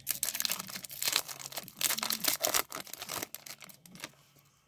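Foil trading-card pack wrapper being torn open and crinkled, a dense crackling rustle that thins out about three seconds in to faint rustling as the cards slide out.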